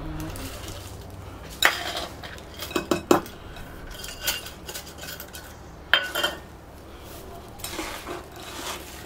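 A handful of sharp clinks and knocks from a metal measuring cup against a mixing bowl as frozen peas are tipped into raw lamb mince, spread over several seconds. Softer noise of gloved hands working the mince follows near the end.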